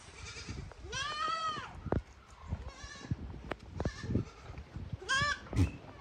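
Goats bleating: one loud bleat about a second in and another near the end, with fainter bleats between, over scattered knocks.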